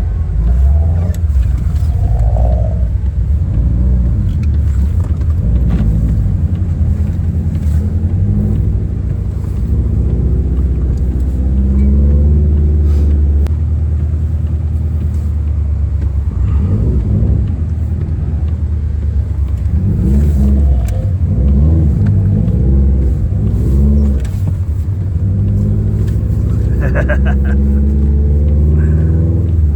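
Subaru WRX engine running while driving. It revs up and falls back several times.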